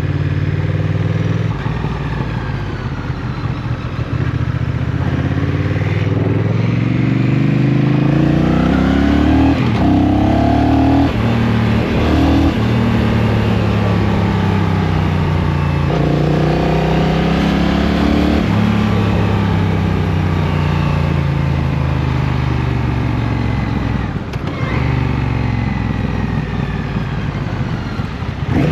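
Motorcycle engine heard from the rider's seat, accelerating up through the gears: its pitch climbs, then drops sharply at each shift. It then eases off with a falling pitch for several seconds before pulling away again near the end.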